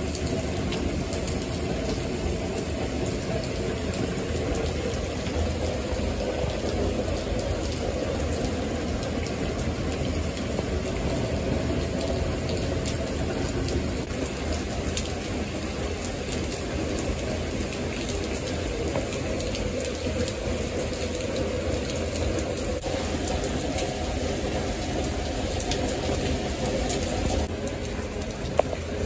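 Steady heavy rain falling on paving, with many individual drops ticking close by. One sharp knock near the end.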